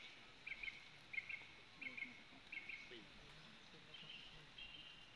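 Faint bird chirping: short double chirps repeated about every three quarters of a second, turning to longer drawn-out notes near the end, over quiet outdoor ambience.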